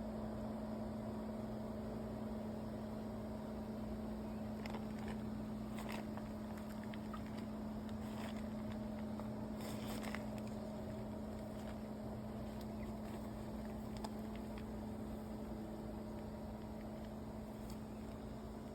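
Steady low mechanical hum with a fainter higher tone over it, and a few faint scattered ticks.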